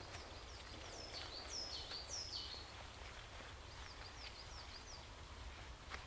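Songbird calling high in the forest: three or four loud downward-sliding whistled notes about a second in, followed by a quicker run of fainter down-slurred notes. A steady low rumble of wind lies underneath.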